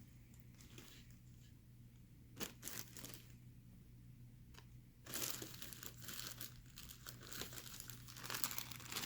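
A bag crinkling as it is handled and opened: a few brief crinkles about two and a half seconds in, then steady, louder crinkling and rustling from about five seconds on.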